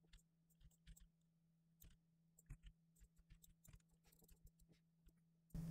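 Near silence, with faint scattered clicks of a computer mouse and keyboard over a low steady hum.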